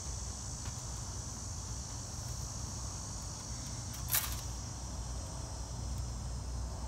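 Steady high-pitched chorus of insects buzzing over a low rumble, with one sharp click about four seconds in.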